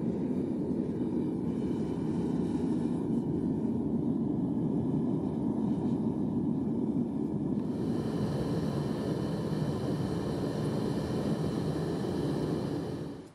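Propane-fired foundry furnace burner running with a steady low rushing noise while it melts silicon bronze in the crucible. The sound falls away at the very end.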